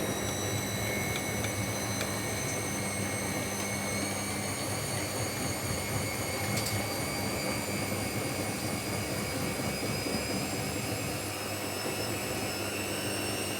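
Zerowatt/Hoover Performa 1000 washing machine in its intermediate spin: the drum motor's whine has just climbed and now holds steady over a low rumble. It is spinning with some effort under a heavy load.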